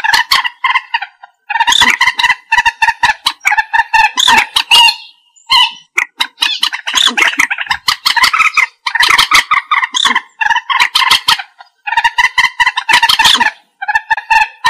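Common moorhen giving harsh, stuttering call phrases of rapid pulses, each about a second long, repeated again and again with short gaps between them.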